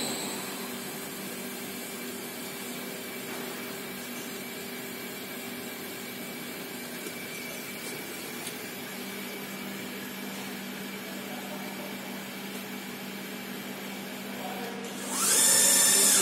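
Bystronic Xpert 150 hydraulic press brake running with a steady hum. About a second before the end, a loud whine rises in pitch with a hiss as the drive spins up.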